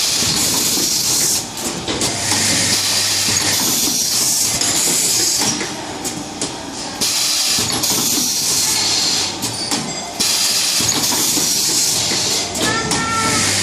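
USB cable soldering assembly machine running, with loud steady hissing in stretches of a few seconds that drop away briefly three times, and a short squeal near the end.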